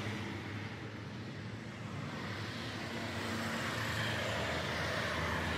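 A steady low mechanical hum over a faint even background noise.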